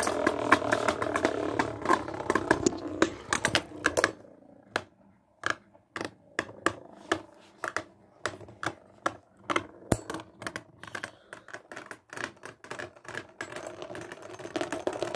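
Two Beyblade spinning tops clattering against each other and the wall of a plastic basin. A dense rattle of clicks fills the first few seconds, then separate sharp clicks come roughly two a second as the tops keep knocking together.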